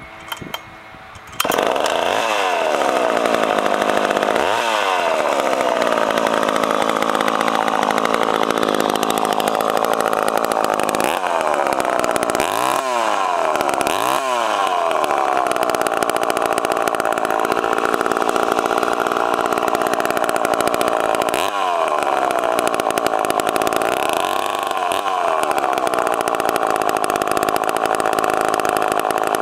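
A restored Poulan 245A two-stroke chainsaw starts about a second in and runs, its engine speed dipping and climbing back up several times.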